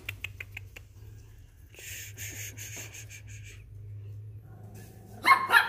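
One-week-old Pomeranian puppies whimpering: faint short squeaks early on, then a louder high-pitched squeal near the end. A low steady hum runs underneath.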